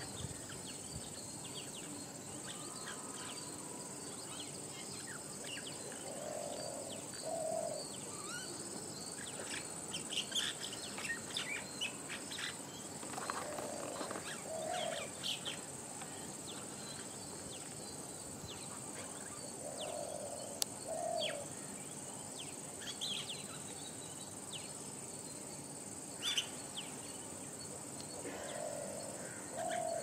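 A steady high-pitched insect drone with wild birds chirping here and there, and a low two-note call that comes back about every seven seconds.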